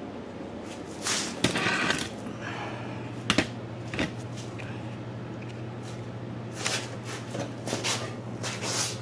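Rustling and knocks as the camera is picked up and carried, with a sleeve brushing against it. There is a sharp click about three seconds in, over a steady low hum.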